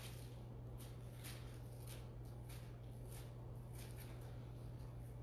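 Thin Bible pages being turned and handled at a pulpit, a run of soft quick rustles over a steady low hum.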